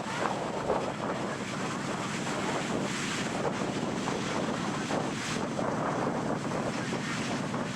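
Ocean surf washing on a sandy beach, a steady rushing noise, with wind buffeting the microphone.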